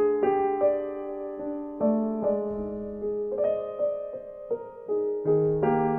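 Background piano music: slow single notes and chords, each struck and left to ring and fade.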